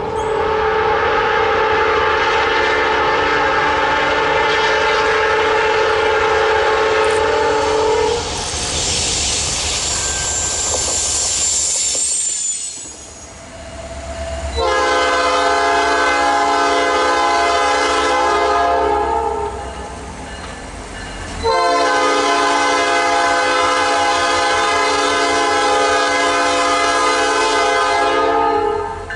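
Nathan Airchime P5 five-chime locomotive air horn sounding a chord in three long blasts, the last two separated by a short gap. Between the first and second blasts there are a few seconds of passing-train rail noise with a high squeal.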